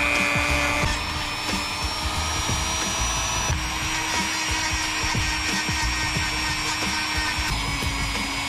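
Dremel rotary tool running steadily with a high whine, its grinding bit sanding a hand-held moulded mount piece. The whine steps slightly in pitch about one, three and a half, and seven and a half seconds in. Background music plays underneath.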